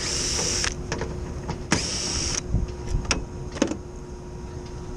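Cordless drill run in two short bursts, a little under a second each, drilling out the rivets that hold a part on the cooling tower's fan housing. A few light knocks follow.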